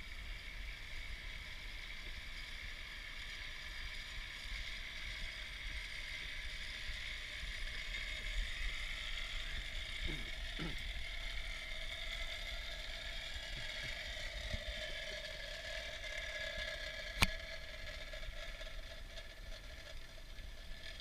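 Zip line trolley pulleys whirring along the steel cable, the whine sagging lower as the riders slow toward the landing. A single sharp clack comes about seventeen seconds in, with low wind rumble on the microphone underneath.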